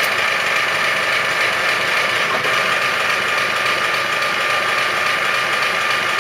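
Union BFT125/5 horizontal boring and facing machine running with its spindle at a middle-range speed: a steady mechanical drive sound with a constant high whine over it.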